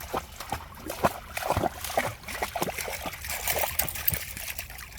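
Water splashing in quick irregular splashes and trickles, as a dog plays and wades in water; it starts abruptly and stops near the end.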